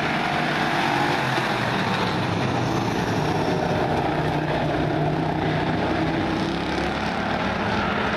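A pack of pure stock dirt-track race cars running at racing speed around the oval, several engines at once blending into a steady, continuous drone with their pitches shifting as the cars go through the turns.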